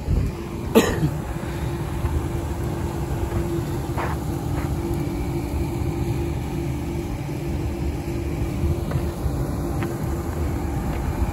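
Machinery running steadily, a low rumble with a steady hum, with a sharp knock about a second in.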